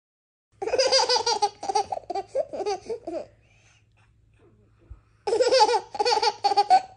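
A baby laughing in two bouts of quick, chopped giggles: one starting about half a second in and lasting about three seconds, and a second shorter bout near the end.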